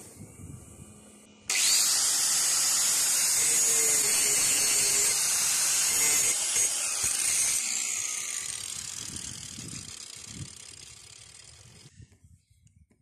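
Angle grinder grinding metal: it starts abruptly about a second and a half in with a loud steady hiss, then is taken off the work and winds down, its whine falling in pitch as it fades away.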